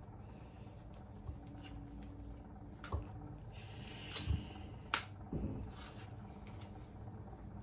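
Faint kitchen handling noises: a few light clicks and knocks, about four in all, over quiet room tone.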